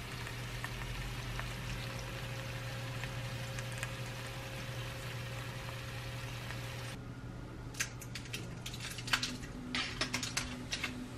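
Baked salmon and potatoes sizzling in a foil-lined dish fresh from the oven, a steady hiss over a low hum. About two-thirds of the way through the hiss drops away and metal tongs click and tap against the dish and plate as the food is served.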